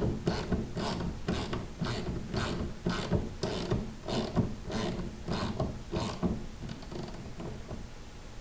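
Ratchet wrench clicking in even strokes, about two a second, as a bolt is tightened on the snowblower's rubber auger; the clicking stops about seven seconds in.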